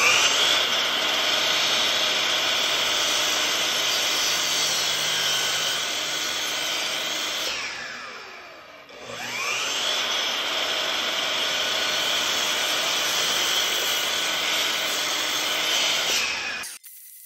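Makita sliding mitre saw spinning up with a rising whine and cutting across a board to a set half depth for a cross lap. It winds down with a falling whine about 8 seconds in, then spins up again for the second shoulder cut, which stops suddenly near the end.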